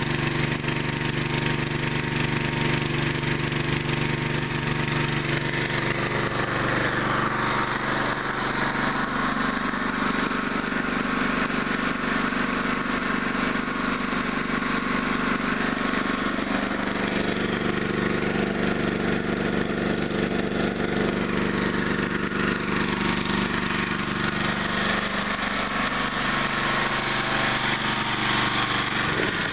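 Small gasoline-engine water pump running steadily, mixed with water rushing down a sluice box and pouring off its end. The engine's tone shifts a few seconds in and shifts back near the end.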